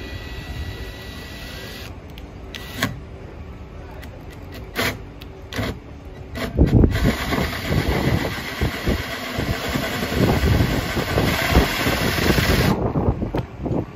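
Cordless drill turning a 1-inch hole saw into a boat's gel-coated fiberglass deck. At first a lighter whir with a few sharp clicks. From about halfway in comes a loud, rough grinding as the saw bites through the fiberglass, stopping about a second before the end.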